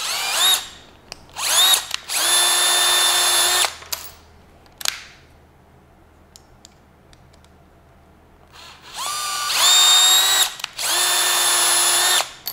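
Cordless drill turning a tap to cut 8-32 threads in 1/8-inch aluminum, lubricated with tap fluid. The motor whines in short runs. It spins up with a rising whine about a second and a half in and runs steadily for a couple of seconds. After a quiet stretch with a click, it runs twice more near the end.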